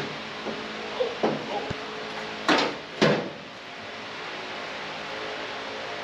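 Knocks and clunks from a sheet-metal engine enclosure panel being handled, with two louder scraping clunks about half a second apart a little before halfway, over a steady hum.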